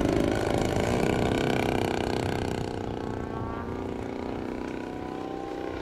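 Large radio-controlled aerobatic airplane flying overhead, its engine and propeller running at high power, then throttled back and lower in pitch from about halfway.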